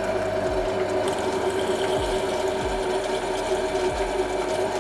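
Benchtop drill press running steadily, its twist drill bit cutting holes through a steel plate: a constant motor hum of several held tones.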